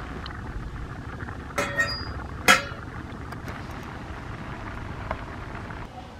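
Metal kitchen utensils clinking: a sharp clink about one and a half seconds in and a louder one about two and a half seconds in, over a steady low background rumble.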